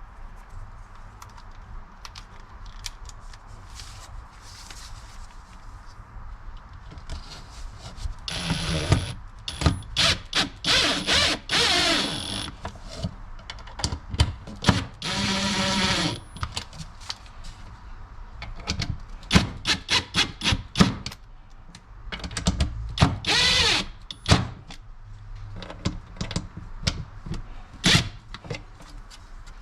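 Cordless drill driving screws to fasten a car door speaker to its mounting adapter, in several short whirring bursts of one to two seconds, with the motor pitch rising and falling. Sharp clicks and handling knocks come in between the bursts.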